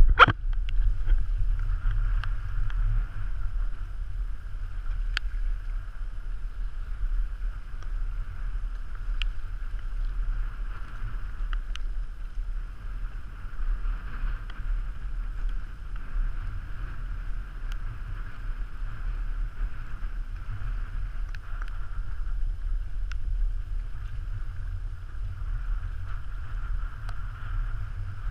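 Wind buffeting the microphone as a steady low rumble, over the hiss of water rushing along the hull of a Hobie Tandem Island sailing trimaran under sail in choppy water. A few faint ticks come and go.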